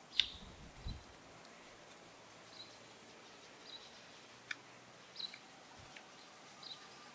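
Quiet outdoor ambience: a couple of soft low thumps in the first second, then faint scattered clicks and a few short, high chirps.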